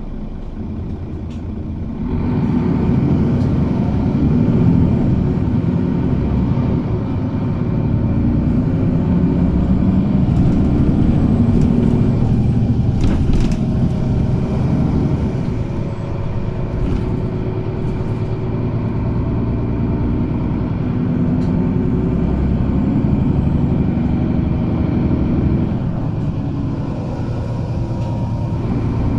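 City bus engine and running noise heard from inside the passenger cabin, rising in level about two seconds in as the bus pulls away from standing in traffic, then a steady rumble as it drives on. A short clatter comes about halfway through.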